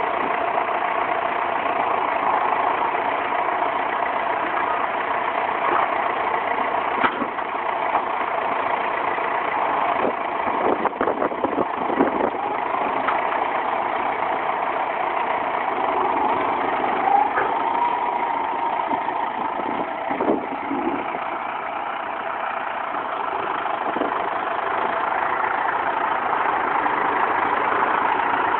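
John Deere tractor's diesel engine running steadily while its front loader works straw bales, with a few short knocks and clunks about ten to twelve seconds in and again about twenty seconds in.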